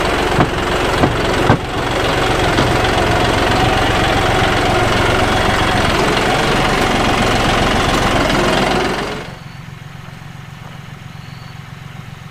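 John Deere 5055E tractor's three-cylinder diesel engine running, with a few sharp knocks in the first two seconds. About nine seconds in the engine sound drops sharply to a much quieter, steady low running.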